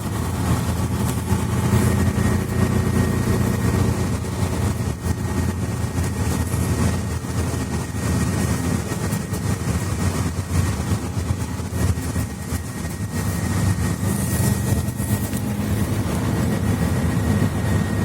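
Mercedes-Benz Citaro C2 articulated bus's engine and Voith automatic gearbox running, heard from inside the passenger cabin, with a faint steady high whine.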